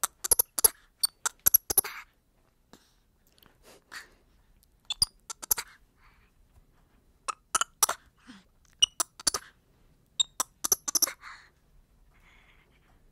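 Black-handed spider monkey making short, sharp calls in quick clusters of two to four, with short pauses between the clusters.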